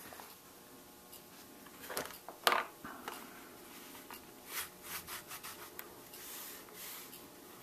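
A thick veg-tan leather knife sheath handled in the hands: a few sharp clicks and taps about two seconds in, the loudest just after, then irregular leather rubbing and scraping as the strap and sheath are worked.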